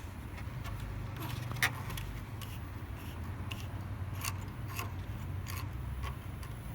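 Scattered light clicks and metallic ticks over a low steady hum, with one sharper click about one and a half seconds in.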